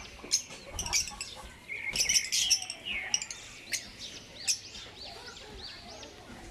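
A group of African lovebirds chirping: many short, shrill calls overlapping, busiest about two seconds in.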